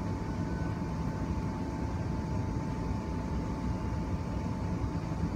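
Interior noise of an electric commuter train running between stations: a steady low rumble of wheels on the track, with a faint, constant high whine throughout.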